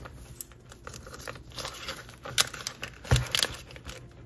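Clear plastic binder pockets and vinyl pouches crinkling and rustling as they are handled and flipped, with scattered small clicks and a sharper knock about three seconds in.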